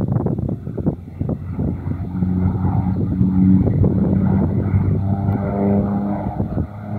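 Thrush agricultural crop-spraying aircraft flying low past: a steady engine and propeller drone that comes in about two seconds in and grows fuller near the end, with wind buffeting the microphone at the start.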